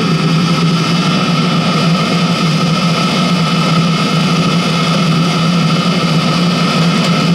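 Chinese diesel heater running steadily at its high burn rate on 10W-30 engine oil, its combustion fan humming with a steady whine over the rush of the burner; the oil fuel is sustaining its own flame with the glow plug off.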